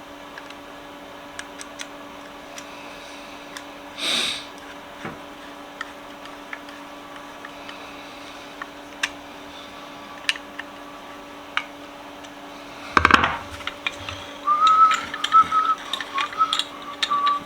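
Light clicks and taps of vise parts being handled and fitted back together, with a short rasp about four seconds in and a loud clatter about thirteen seconds in. Near the end a person starts whistling, holding a few notes that step up and down slightly.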